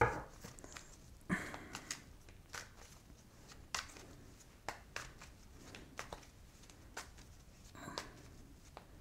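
A deck of tarot cards being shuffled by hand: faint, irregular soft flicks and slides of cards against each other, with a slightly louder rustle about a second in and again near the end.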